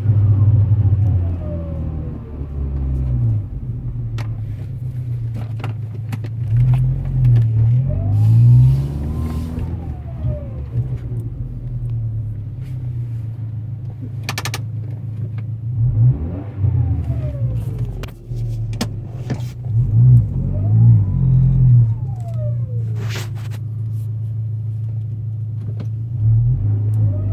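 2003 Volkswagen Passat turbo engine idling and being revved four or five times. Each rev brings a whine that rises and then sinks slowly as the revs drop, the sound of a turbo the owner calls bad.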